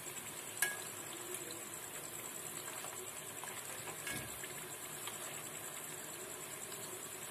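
Rice flour chips deep-frying in a kadai of hot oil: a faint, steady sizzle and bubbling, with one sharp click less than a second in.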